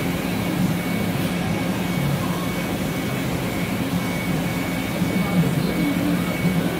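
Sodick AQ35L CNC ram EDM machine running: a steady low hum with a faint, constant high-pitched whine over it.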